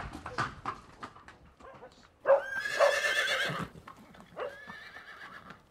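Pony's hooves clip-clopping on a hard stable-yard floor as it is led at a walk. A loud wavering whinny comes about two seconds in, and a shorter, fainter one follows a couple of seconds later.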